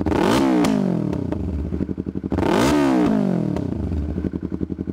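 Yamaha R3 parallel-twin engine blipped three times through a full exhaust, each rev rising quickly and falling back to idle, with popping as the revs drop.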